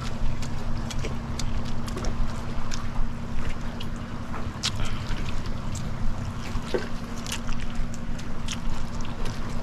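A steady low motor hum with scattered sharp clicks and taps over it.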